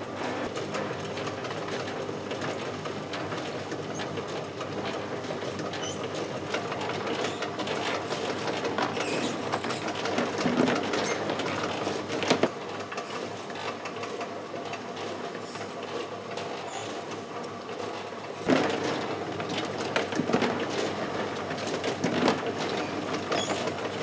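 Egg grading machine running steadily, with eggs clattering along its roller conveyor and a few sharper knocks.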